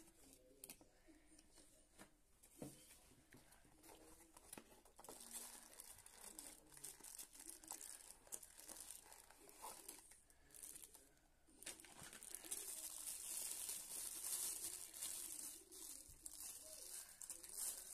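Plastic wrapping and paper packaging of a digital watch crinkling and rustling as it is handled and unwrapped, with scattered small clicks, growing louder and busier past the middle.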